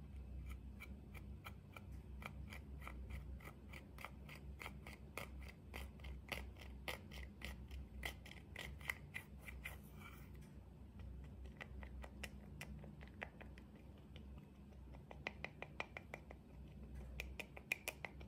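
Metal-tipped dotting tool scraping and crushing pressed powder blush in its plastic compact: quick sharp scratches at about four a second, with a short break midway.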